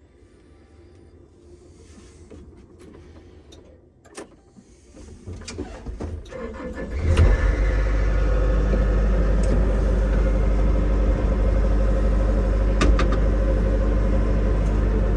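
An engine starts about seven seconds in after a few light clicks, then runs steadily and loudly.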